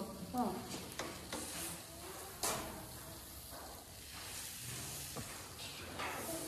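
Chicken and tomato kebabs sizzling on skewers over a charcoal grill, with a few sharp clinks as metal skewers are set down on the grill's edge.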